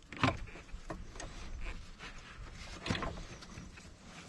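K&N air filter and intake parts being slid through the heat shield and fitted by hand: rubbing and scraping, with two sharp knocks, one just after the start and one about three seconds in.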